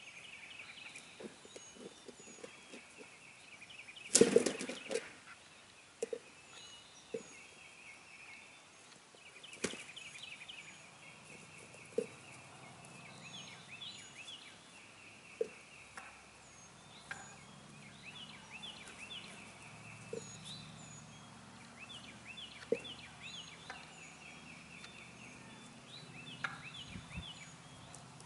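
Wild turkey gobblers strutting and sparring around a turkey decoy: one loud gobble about four seconds in, with scattered sharp knocks through the rest.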